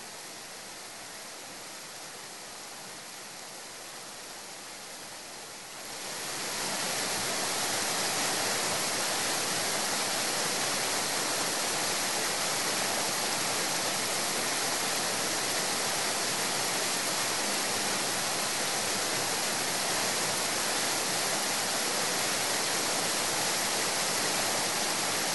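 Steady rushing noise of heavy rain and floodwater. It is low at first, then grows louder and hissier about six seconds in and holds steady.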